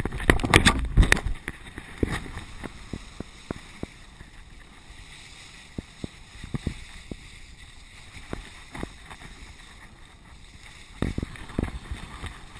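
Wind on a GoPro's microphone and skis sliding over snow during a ski run, with many irregular sharp knocks. The rush of noise is loudest in the first second or so and again near the end.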